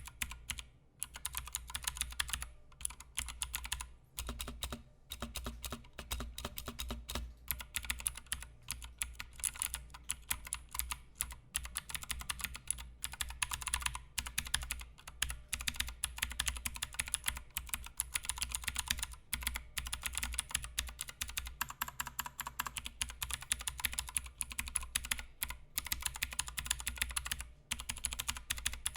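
Fast, continuous typing on a Royal Kludge RK61 60% mechanical keyboard with clicky blue switches and doubleshot PBT keycaps: a dense stream of sharp key clicks, broken by a few brief pauses.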